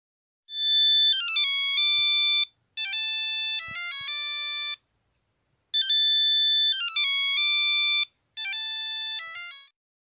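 A mobile phone ringtone melody: clean electronic tones stepping from note to note, played in four short phrases with brief gaps between them.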